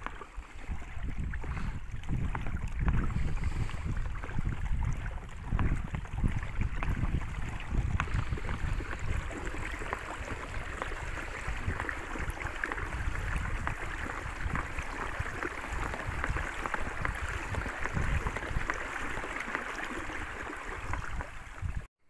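Water splashing and lapping against the inflatable pontoons of a pedal-driven boat under way, with wind rumbling on the microphone. It cuts off suddenly near the end.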